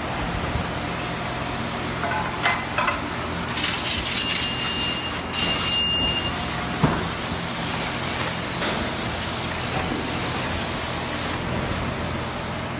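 EVA shoe injection-moulding machine (EK3-8E2) running, a steady mechanical hum under constant air hissing. A stronger hiss of air swells from about 3.5 to 6 seconds in, with a brief thin whistle. There is a sharp click about 7 seconds in.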